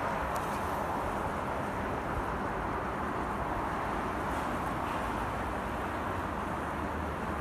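Steady road traffic noise, an even rumble and hiss with no single car standing out.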